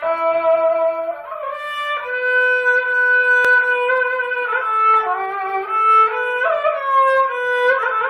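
Politiki lyra (Istanbul kemençe), a small three-stringed bowed fiddle, being bowed in a melody of held notes that step and slide from one pitch to the next, starting abruptly at the first stroke. This is the sound test of a newly built instrument.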